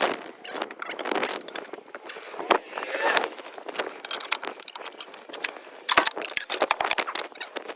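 Irregular metallic clanks and rattles of tire tools working against a steel tractor wheel rim as a tire bead is levered on by hand.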